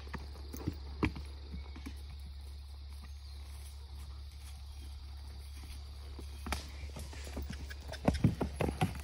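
Horse hooves stepping on a gravel trail: a few scattered footfalls about a second in, a quieter stretch, then a quicker run of steps near the end, over a low steady hum.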